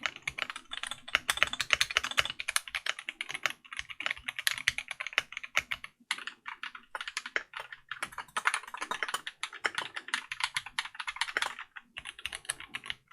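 Fast typing on a custom mechanical keyboard: a dense run of keystroke clacks, pausing briefly about six seconds in and again near the end.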